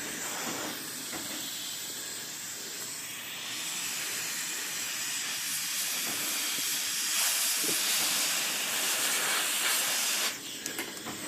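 Compressed-air blow gun hissing steadily as air is blown through the spread coils of an IBM Selectric impression cable to clear out old gummy oil. The hiss stops about ten seconds in.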